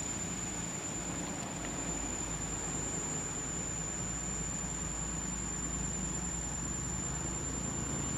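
Steady outdoor background noise under a constant high-pitched whine, with no distinct splashes standing out.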